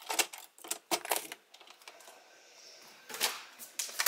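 A door's thumb-turn lock and lever handle clicking as the door is unlocked, a quiet pause, then more clicks and rustle as the door is opened.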